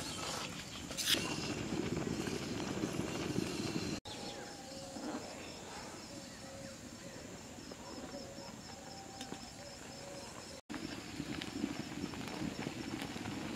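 Thick milk syrup with rice-flour noodles boiling hard in a large iron wok over a wood fire, bubbling and blopping irregularly. It drops quieter about 4 s in and comes back louder near the end.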